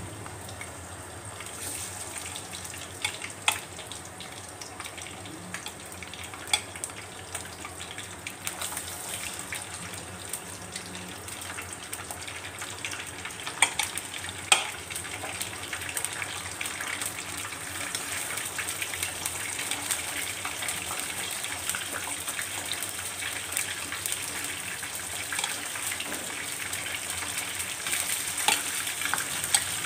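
Raw marinated chicken pieces deep-frying in hot oil on high heat: a steady sizzle with crackling, broken by a few sharp clicks, the loudest about fourteen seconds in.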